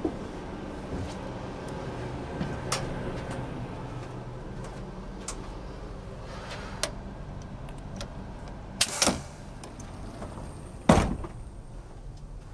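Clicks and knocks from an interior door in a TGV Duplex carriage: a double knock about nine seconds in and a louder knock near the end. A steady low hum runs underneath.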